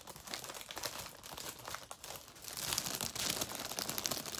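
Clear cellophane wrap crinkling as it is pulled and folded around a cardboard box, growing louder about two and a half seconds in.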